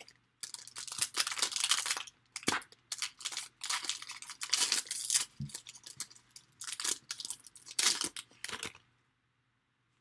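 Foil wrapper of a Panini Contenders Draft Picks trading-card pack being torn open and crinkled by hand, in irregular crackling bursts that stop near the end.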